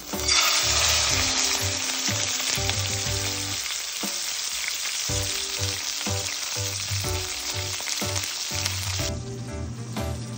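Beef roast searing in hot oil, a sizzle that starts suddenly as the meat goes into the pot, loudest at first, and drops off sharply about nine seconds in. Light background music runs underneath.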